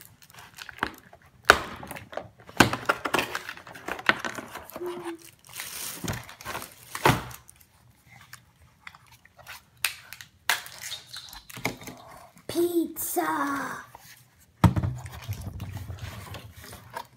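Crinkling of plastic packaging and wrappers with many sharp clicks and knocks as a boxed plastic toy boat is unpacked and handled on a table. A short voice sounds about three quarters of the way through, and a low rumble follows near the end.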